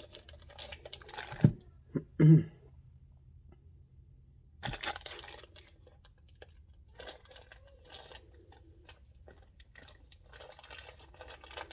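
Rummaging through the shift kit's parts packaging for the new spring: plastic bags crinkling and tearing in short crackly spells, with a few light knocks early on.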